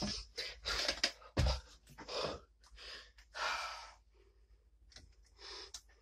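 Breaths close to the microphone and handling noise, with a few sharp clicks in the first second and a half.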